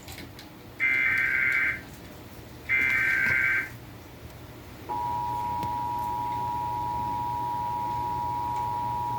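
Emergency Alert System test signals: the second and third of three SAME header data bursts, each about a second long, then about five seconds in the steady two-tone EAS attention signal starts and holds.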